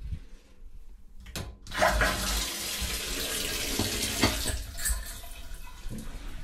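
Water running from a shower's wall spout and splashing onto a tiled floor. It comes on with a gush about two seconds in, just after a short knock, and drops to a lower level about five seconds in.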